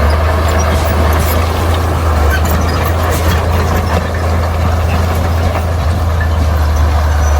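Bulldozer's diesel engine running steadily with a deep, constant drone, with scattered light clicks and clanks over it.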